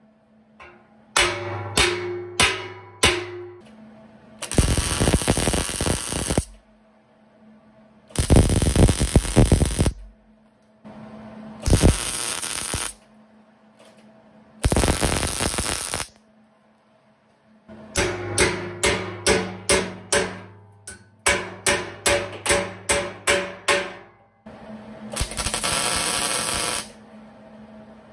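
MIG welder laying tack welds on steel tubing: even crackling bursts of one to two seconds, five times. Between them come sharp ringing strikes of a hammer on the steel, a few near the start and a longer quick run in the second half.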